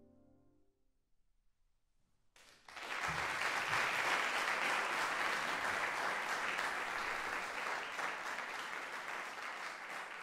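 The final tuba and piano chord dies away into the hall's reverberation, followed by a moment of near silence. Audience applause then breaks out about two and a half seconds in and continues steadily.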